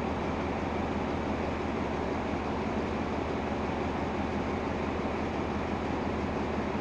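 Diesel locomotive idling steadily while the train stands at the platform: a constant low engine hum with no change in pitch or level.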